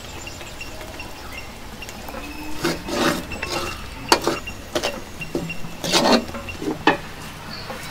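Wooden spoon stirring and scraping a thick, grainy mixture in a metal wok, in a run of short, uneven strokes that start a couple of seconds in.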